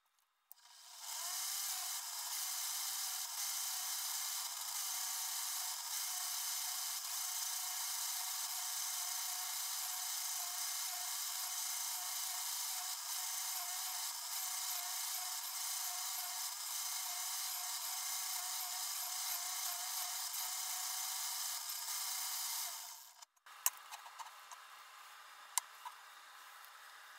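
Quorn tool and cutter grinder's wheel running and grinding an Acme tap's threads down to diameter, taking a couple more thou off the oversized portion: a steady hiss with a slightly wavering whine. It starts about half a second in and cuts off sharply after about 22 seconds, leaving a few faint clicks.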